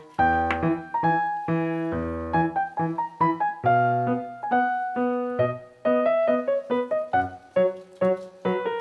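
Background piano music: a light melody of separate struck notes over low bass notes, at an even pace.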